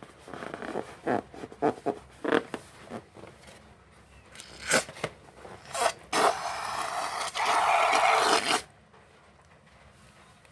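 Balloon making rasping noises: a run of short scraping bursts, then one steady rasp lasting about two and a half seconds that cuts off suddenly.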